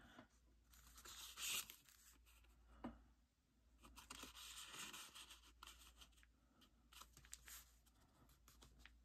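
Faint, irregular rustling and scraping of paper cutouts being lifted, slid and pressed onto a journal page, with a few small taps.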